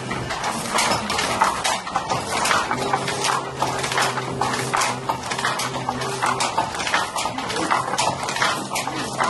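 Wooden hand loom clattering as it is worked, with rapid, irregular wooden knocks.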